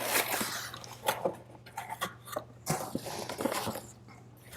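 Rustling and crinkling of packaging and paper as items are lifted out of a cardboard box, with scattered small knocks and scrapes.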